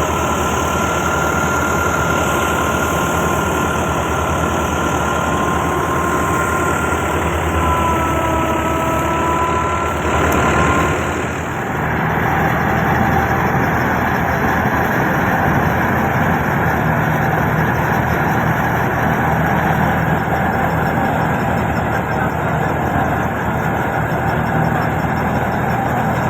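Engine of a wheat-harvesting machine running steadily, with a faint whine over it. The sound changes about eleven seconds in and then runs on steadily.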